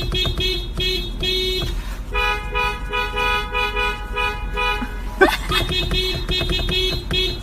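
Car alarm sounding: a repeated electronic tone pulsing a few times a second, switching to a different tone pattern about two seconds in and again near the end.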